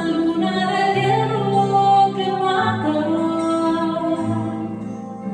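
A woman singing a slow song in long held notes over a quiet instrumental accompaniment.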